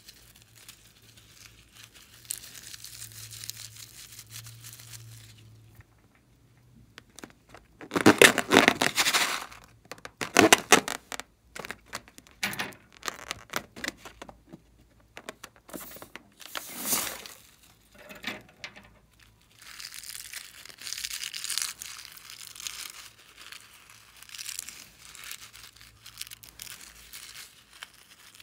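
Close-miked handling of slime-filled rubber balloons: crinkling and rustling of the rubber, with loud crackling a third of the way in. Then sharp snips as scissors cut a balloon open, and more rustling as the slime is squeezed out of it.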